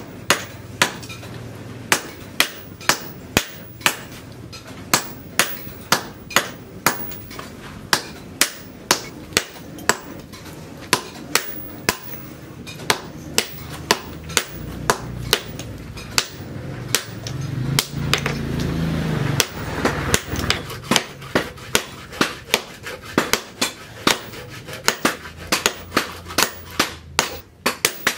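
Hand hammer blows on hot leaf-spring steel at an anvil, about two sharp ringing strikes a second in an uneven rhythm. A low rumble swells under the strikes in the middle.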